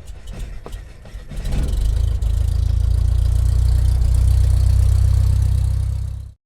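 Strong wind buffeting the microphone: a loud, steady low rumble with hiss that builds about a second and a half in and cuts off suddenly near the end.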